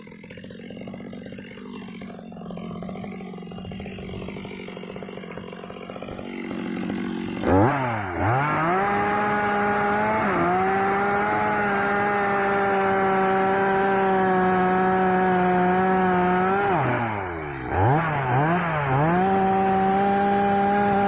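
STIHL MS 250 two-stroke chainsaw ticking over at idle for about seven seconds, then revved hard to full throttle and held there steadily. Near the end it drops off briefly, is blipped a few times and runs back up to full speed.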